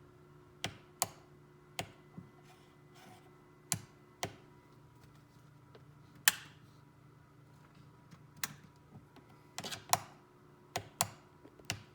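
Sharp clicks at irregular spacing, more than a dozen, from the switches of a Vitamix 7500 blender being worked again and again over a faint steady hum. The motor never starts: the blender won't turn on.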